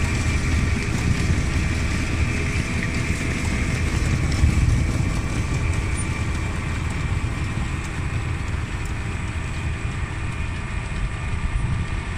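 Tractor running at a steady working pace while a Struik Varix 3000 bed former shapes soil ridges: a continuous low mechanical rumble of engine and implement.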